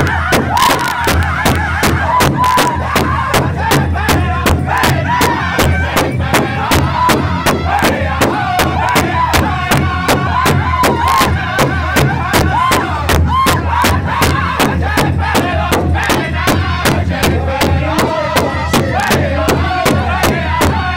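Powwow drum group singing: several men beat one large hide drum together in a steady, fast, even beat while singing a high, wavering chorus in unison.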